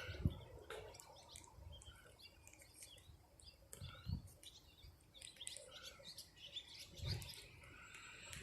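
Wild birds chirping faintly, many short high calls scattered throughout, with a few low bumps about a second in, midway and near the end.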